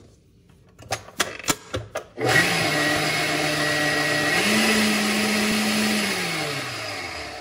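A few taps of a spatula on the mixer's beater, then a tilt-head stand mixer starts about two seconds in, beating a cream cheese and sugar mixture. Its motor hum steps up in pitch as the speed is raised, then falls and winds down to a stop near the end.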